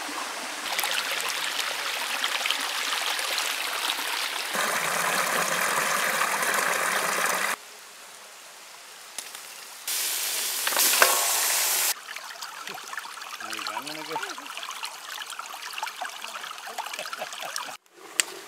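Shallow rocky stream running over stones. Near the middle comes a loud hiss of about two seconds as raw mutton pieces go into a hot oiled wok.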